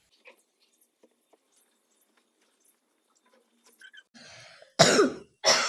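Faint rustling of clothes being handled, then near the end two loud, brief swishes of a garment being shaken out and lifted to hang up to dry.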